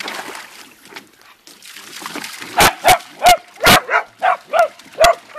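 Water splashing in a tub, then a small dachshund-mix dog starts barking about halfway through: a rapid run of short, high yaps, about three a second.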